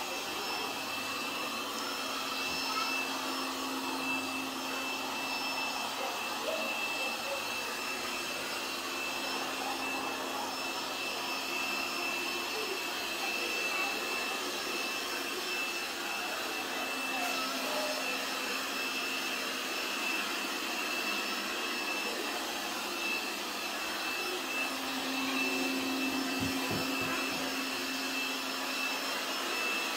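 Lubluelu robot vacuum cleaner running as it cleans a tile floor: a steady whirring with a constant high whine, and a lower hum that drops away and returns a few times. A few low thumps near the end.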